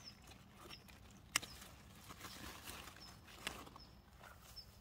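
Zucchini leaves rustling and flower stems snapping as the male flowers are picked by hand: two sharp snaps, about a second and a half in and again two seconds later.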